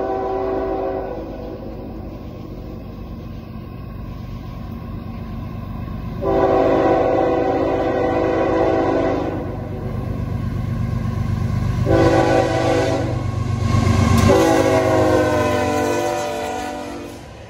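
Norfolk Southern GE ES44AC locomotive 8103 sounding its air horn in the grade-crossing pattern: the tail of one long blast, then a long, a short and a final long blast. Under the horn, the rumble of the diesel engine and train grows louder as the locomotive passes close by, about two-thirds of the way through.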